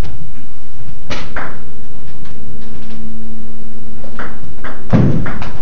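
Table tennis ball being served and rallied: sharp clicks of the ball on paddles and the table, a pair about a second in and a quick run of three near the end. A heavier thud follows just before the end.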